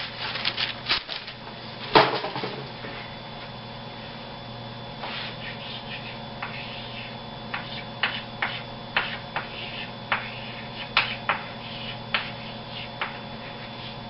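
Chalk tapping and scraping on a blackboard in short, irregular strokes as words are written. Before that, a quick run of light clicks from a wax paper box being handled, and a single knock about two seconds in.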